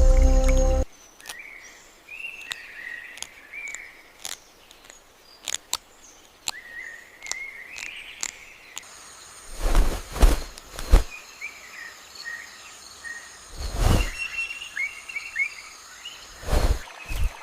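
Forest ambience: birds chirping in short warbling phrases over a steady high insect hum, with scattered clicks. A few loud thuds or rustles come about ten, fourteen and seventeen seconds in.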